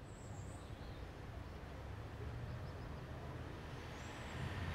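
Faint low rumble over a steady hiss, slowly growing louder.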